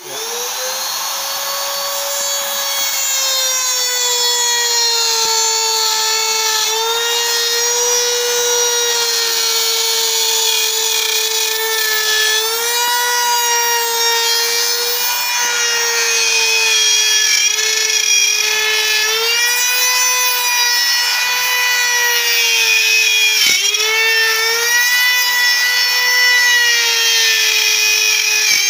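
Handheld router running at full speed, its bit cutting dovetails in wood as it is guided along a dovetail jig template. A high, steady motor whine whose pitch sags and recovers as the bit bites into the wood, with one brief sharp dip a little before the end.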